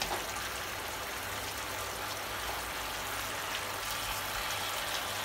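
Rump steaks simmering in a frying pan of sauce: a steady bubbling hiss.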